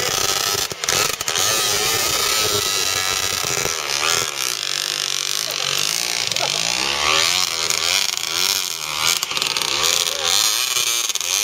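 Dirt bike engine revving up and down repeatedly as it is ridden up a steep, loose dirt slope.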